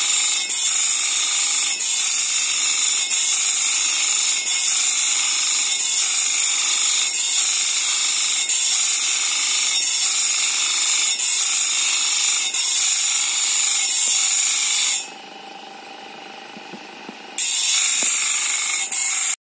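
Electric grinding wheel sharpening the teeth of a sawmill bandsaw blade one by one: a loud, steady, high grinding with a short dip a little over once a second as the blade is stepped on to the next tooth. The grinding stops for about two seconds near the end, starts again, then cuts off suddenly.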